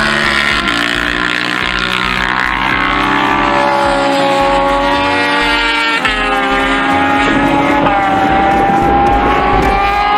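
Several racing motorcycles at speed, their engines' pitch falling and then climbing again as they change gear, with an abrupt change in the engine notes about six seconds in.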